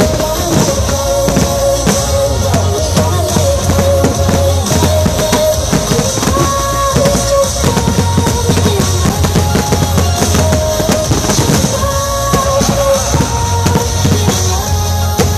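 Loud music with a drum beat, mixed with irregular bangs and crackle from fireworks going off: ground fountains and bursting aerial shells.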